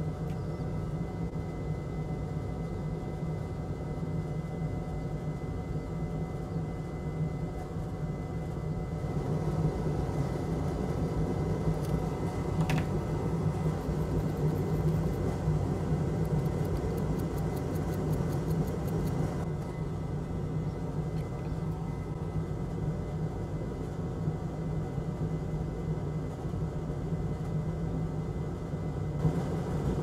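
Steady low whir of fan-driven bench equipment at a microsoldering station. There is one sharp click about 13 seconds in and a faint fast ticking for a few seconds after it, while a brush scrubs the circuit board.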